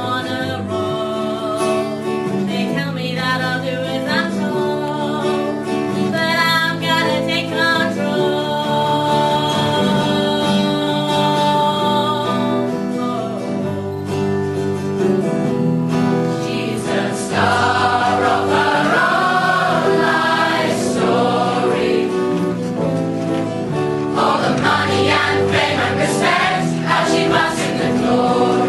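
A stage-musical cast singing together as a choir, with instrumental accompaniment; the singing grows fuller and a little louder a bit past the halfway mark.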